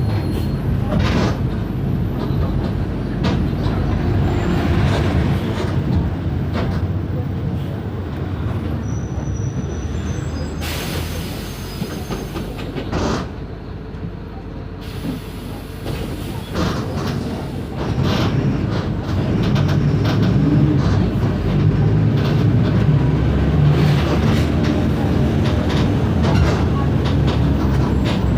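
Mercedes-Benz OF 1519 bus running on the road: a steady diesel rumble with the body rattling and clicking. About eleven seconds in comes a short burst of hissing; the engine is quieter for a few seconds after it, then louder again from about eighteen seconds in.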